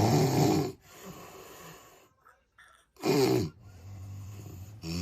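An overweight person snoring loudly. A loud, pitched snore comes at the start and another about three seconds in, each followed by a quieter, drawn-out breath.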